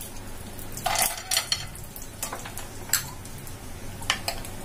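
Chopped cashews and almonds dropped into a nonstick frying pan of hot ghee to roast: a run of light clattering hits, the loudest about a second in, over a faint sizzle.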